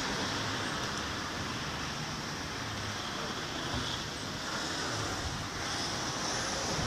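Steady street noise: a continuous hiss of traffic, with wind rushing on the microphone.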